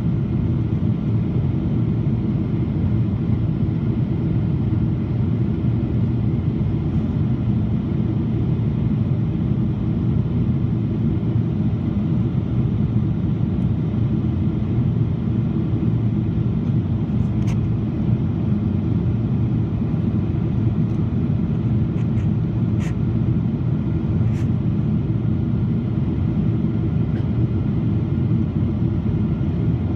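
Steady cabin noise inside a Boeing 777-200 in flight: the drone of the engines and rushing air, heavy in the low end. A few faint clicks come in the second half.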